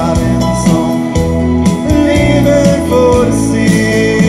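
Live rock band playing: electric guitar, bass guitar and drum kit, with long held guitar notes, some bent up in pitch, over a steady drum beat.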